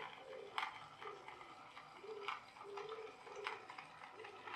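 A small battery-powered line-follower toy car's motors whirring faintly in short stop-start spurts as it steers along a drawn line, with a few scattered clicks.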